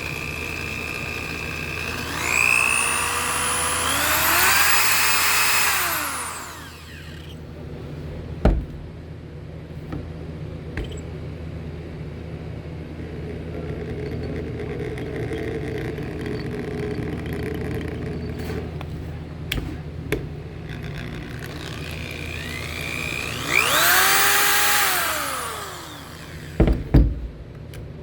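DeWalt D21009 corded drill run twice: the motor whines up in pitch in steps as the trigger is squeezed, holds a couple of seconds, then winds down when released. A steady low hum runs underneath, with a few sharp clicks in between the runs and a cluster of knocks near the end.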